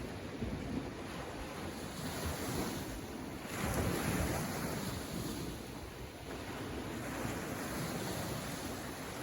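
Sea waves washing onto the shore in a steady wash, with one wave surging louder about three and a half seconds in.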